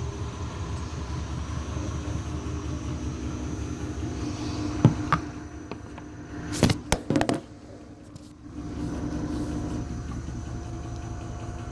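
Washing machine running with a steady low hum. A couple of sharp knocks come a little before halfway, then a cluster of loud bangs; the running sound drops for about a second before picking up again.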